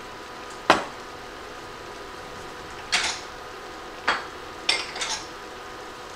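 Kitchenware clatter while spices are measured into a skillet: a sharp clack about a second in, then several lighter knocks and taps a few seconds later, over a faint steady hum.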